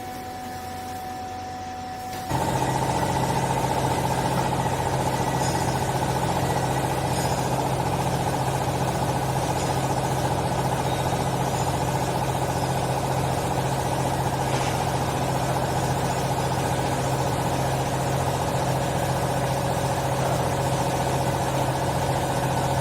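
Vertical hydraulic baler's electric motor and hydraulic pump running with a loud, steady hum. It switches on abruptly about two seconds in.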